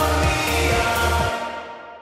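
Arena goal song with a steady thumping beat; the bass and beat drop out about a second and a half in and the rest of the music fades away.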